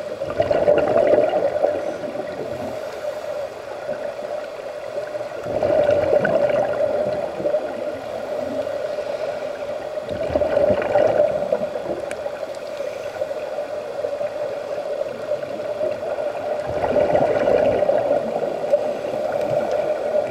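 Underwater sound of scuba divers breathing through their regulators: exhaled bubbles gurgle out in four surges about five seconds apart, over a steady hum.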